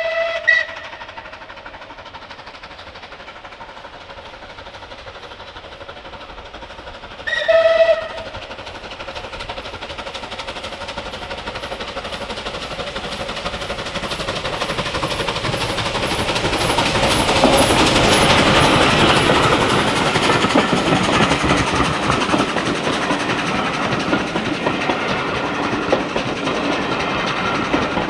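A steam locomotive whistle ends just after the start and gives one more short blast about seven seconds in. Then a steam-hauled passenger train led by Bulleid Battle of Britain class Pacific 34072 approaches and passes close by, its exhaust and running gear loudest about eighteen seconds in, followed by the coaches clattering over the rail joints.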